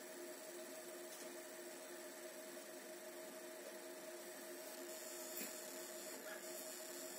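Fiber laser marking machine running while black-marking stainless steel: a faint, steady electrical hum with two held tones over a light hiss.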